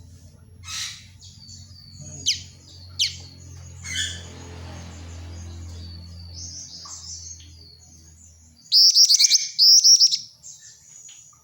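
Female black-winged flycatcher-shrike (jingjing batu) calling: thin high chirps and two quick descending whistles, then a loud burst of rapid chattering calls about nine seconds in. A low steady hum underlies the first part and stops just before the burst.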